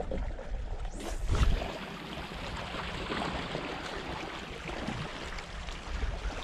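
A spinning rod is cast about a second in: a quick swish with a heavy thud of wind on the microphone. Then sea water washes steadily against the rocks.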